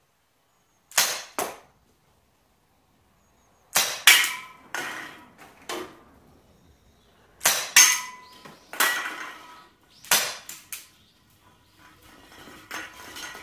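Marushin Smith & Wesson M10 Military & Police gas revolver firing real-style cartridges, a string of sharp pops in quick clusters, with BBs clinking on empty cans, some of which ring briefly.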